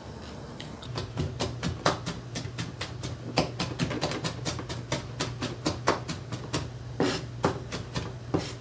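Chef's knife mincing garlic and red chilli on a plastic cutting board: quick, steady chopping strikes, about four or five a second, starting about a second in, over a low steady hum.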